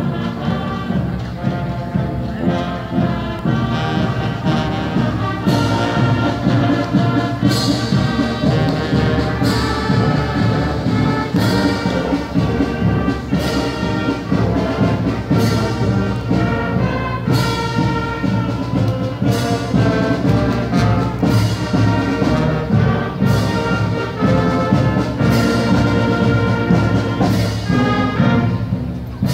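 Marching band playing, with brass carrying the tune and a crash about every two seconds.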